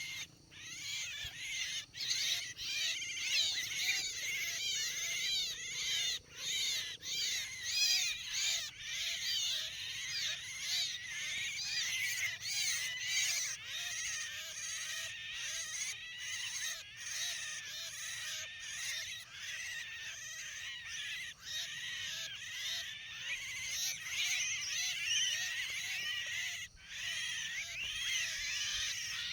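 Javan mynas (jalak kebo) chattering: a dense, continuous stream of squeaky, rapidly repeated calls.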